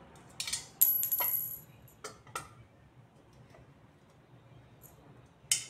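Metal frame pieces of a flat-pack shoe bench knocking and clinking together as they are handled: a sharp clank with a brief high ring just before a second in, a few lighter knocks after it, and another sharp clank near the end.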